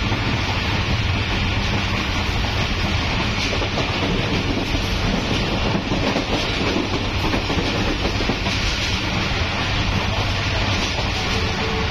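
Pak Business Express passenger coach running at full speed, heard at its open door: steady, loud running noise of the wheels on the rails.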